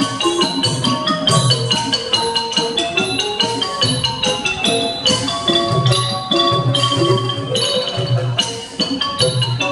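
Thai piphat ensemble music: rapid runs on a ranat xylophone over recurring low drum beats.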